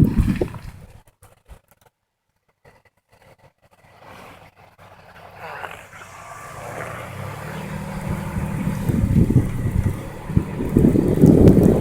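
A motor engine running, growing steadily louder after a brief lull, with wind rumbling on the microphone near the start and end.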